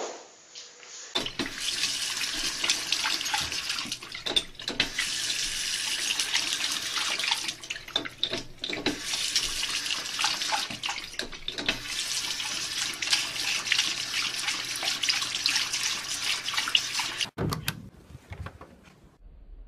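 Bathroom sink faucet running, a steady stream of water splashing into the basin. It starts about a second in and cuts off abruptly near the end.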